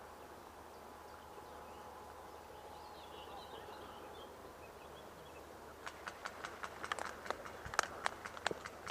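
Airsoft gun firing a string of single shots: sharp cracks, several a second and unevenly spaced, starting about six seconds in over quiet outdoor background. A bird chirps briefly before the shooting.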